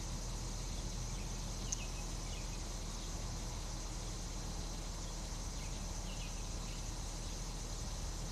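2017 Nissan Micra SV's four-cylinder engine running at a steady idle; this is the engine the owner reports has been tapping since new. Insects chirp steadily in the background, with a few faint bird-like chirps.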